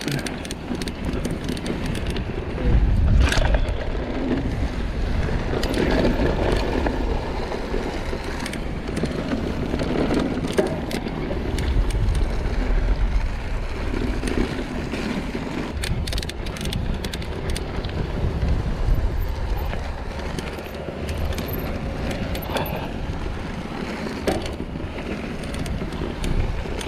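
Mountain bike riding fast down a grassy slope: knobby tyres tearing through the grass, with short rattling clicks from the bike and wind buffeting the microphone in surges.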